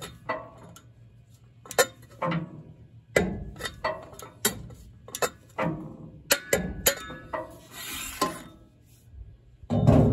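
Torque wrench with a steel cheater pipe over its handle ratcheting on the drum-knife bolts of a Vermeer BC1500 wood chipper: irregular sharp metallic clicks and clinks. A scraping slide comes about eight seconds in, and a heavy thunk near the end as the pipe comes off the wrench.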